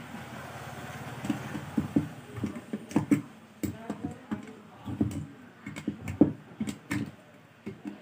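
Steel pliers clicking and scraping on the nuts and metal casing of a table fan motor while the housing nuts are loosened, with a short grating rattle at the start and then irregular sharp metallic clicks and knocks.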